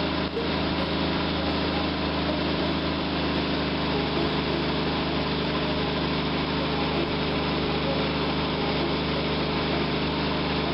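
Jeep 258 inline-six engine running steadily, heard close up at its carburetor.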